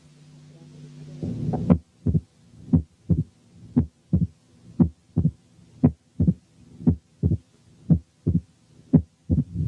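Recorded heart sounds of a patient with mitral stenosis, lying on his back: a steady lub-dub about once a second, the first heart sound accentuated and the pauses between beats quiet. A low hum rises over about the first second and a half before the beats begin.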